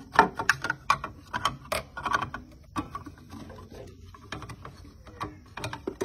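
Rapid plastic clicks, knocks and rattles as a screwdriver pries the small relay box off a refrigerator's Embraco compressor and the box and its wires are pulled free. The clicking is densest in the first three seconds, then sparser.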